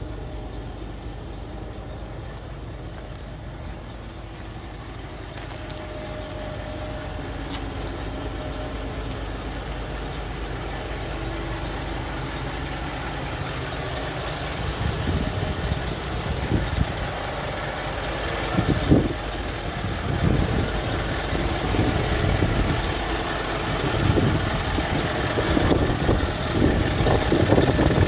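Scania R440 truck's 13-litre inline-six diesel idling steadily. It grows louder through the second half, with uneven low rumbling surges.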